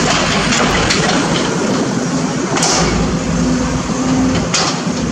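Sumitomo SH210 hydraulic excavator's diesel engine running steadily under load, with a couple of sharp clanks from the working machine about two and a half and four and a half seconds in.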